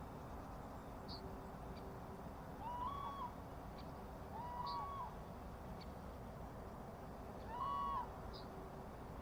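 A bird calling three times with a clear, hooting note, each call about half a second long, rising briefly, holding level, then dropping. Fainter short high chirps come in between.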